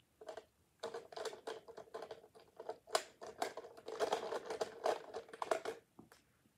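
Plastic markers clattering as a hand rummages through a plastic marker caddy: a quick run of small clacks that starts about a second in and stops shortly before the end.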